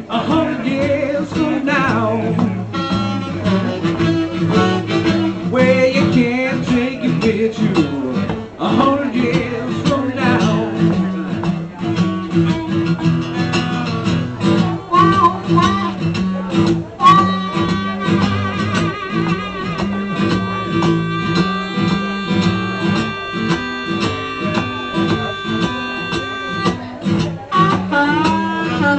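Acoustic blues instrumental break: harmonica solo with bending notes, then a long held note through the second half, over a strummed acoustic guitar.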